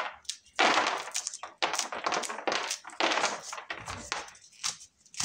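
Dried maize being shelled by hand by rubbing one corn cob against another: about six dry rasping scrapes, with kernels clicking as they fall onto a woven bamboo tray.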